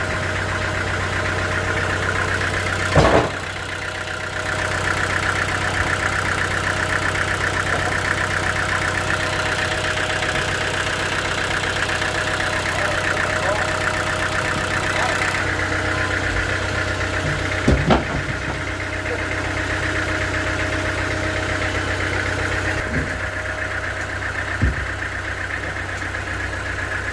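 Sawmill machinery running steadily with a motor hum, broken by a few loud knocks: one about three seconds in, a double knock midway and another near the end.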